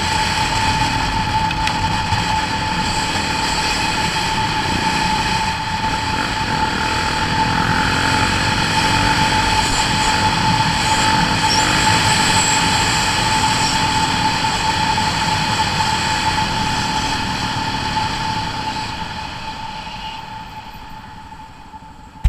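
Off-road motorcycle running steadily along a dirt trail, its engine and riding noise heard from a camera mounted on the bike, with a constant whine throughout. The sound fades out over the last few seconds.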